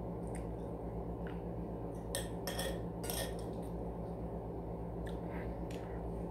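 A handful of light clinks from a metal spoon against a ceramic plate while eating, over a steady low hum.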